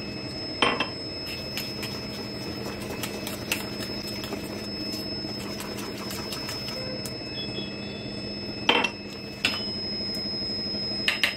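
Wire whisk beating runny flour-and-curd batter in a steel bowl, a fast run of soft ticks with a few louder clinks of metal on metal, the loudest about a second in and near the end. A steady electrical hum with a faint high whine runs underneath.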